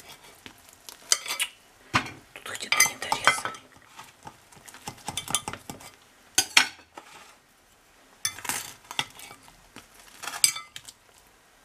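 A spatula scraping and knocking against a glass baking dish while a baked pie is cut and a piece lifted out, in irregular scrapes and clinks with short pauses.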